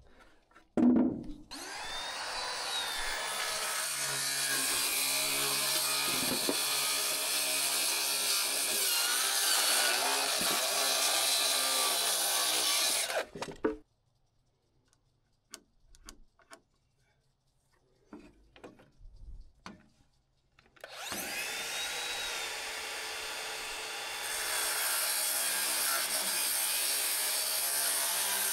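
Makita 7-1/4-inch circular saw cross-cutting a wooden I-joist floor joist to length. There are two long cuts: one of about twelve seconds, then a pause with a few light knocks, then a second cut that starts about twenty seconds in and keeps going. A loud knock comes about a second in, before the first cut.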